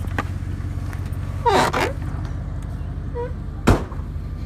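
Pickup truck engine idling low and steady. Over it come a couple of short squeaks and a drawn-out creak, then one sharp slam a little before the end, as of the truck's cab door being opened and shut.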